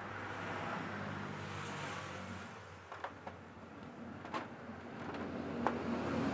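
Motorbike engine running at low revs, fading a little midway and coming back slightly higher in pitch near the end, with a few light clicks.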